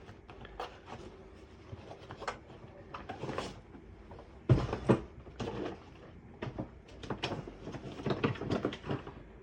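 Scattered clicks and knocks of handling and tool work, with one sharp, loud knock about four and a half seconds in.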